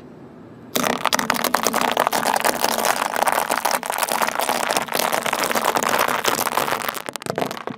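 Dry tube pasta crunching and snapping under a slowly rolling car tyre: a loud, dense crackle of many small cracks that starts suddenly about a second in and dies away just before the end.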